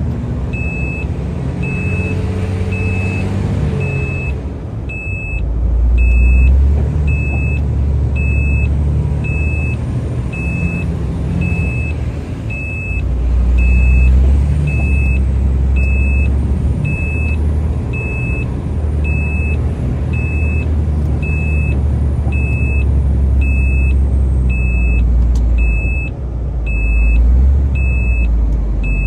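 Heavy truck's engine running with a low rumble that swells louder three times, about 6, 14 and 27 seconds in, as the truck works at a snowy climb it is stuck on. A short high warning beep repeats evenly about one and a half times a second throughout.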